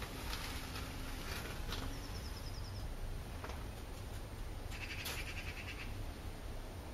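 Steady low background rumble with two short, rapid chirping trills from a small bird, a high one about two seconds in and a lower, louder one about five seconds in, plus a few faint clicks.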